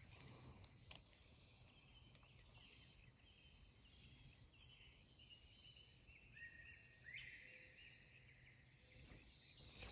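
Near silence: faint outdoor ambience with faint high-pitched wildlife calls and a few soft clicks.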